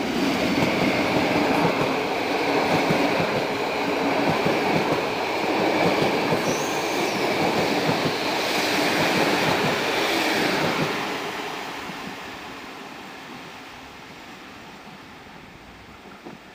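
EP07 electric locomotive and its passenger coaches passing close by: loud running noise of wheels on rails, with clatter and a steady high squeal. It fades away after about eleven seconds as the train moves off.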